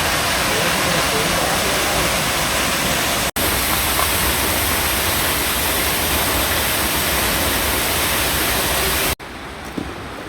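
Waterfall rushing, a loud steady noise of falling water. It cuts out for an instant about a third of the way in, and near the end drops abruptly to a quieter rush of water.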